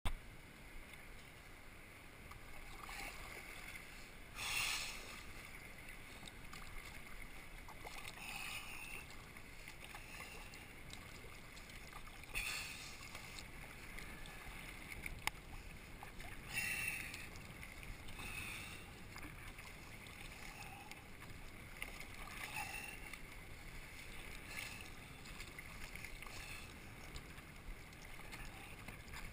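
Sea kayak paddle strokes, the blade dipping and splashing every few seconds, over a steady low rush of water moving past the hull.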